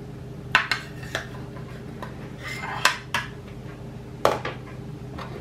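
Metal serving spoon clinking and scraping against a glass baking dish of baked cheese-and-broccoli casserole, with a handful of sharp clinks and a short scrape; the loudest clinks come about three and four seconds in. A steady low hum runs underneath.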